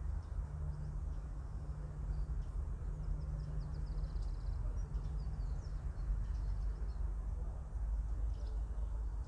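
Small birds chirping, with a quick run of chirps in the middle, over a steady low rumble.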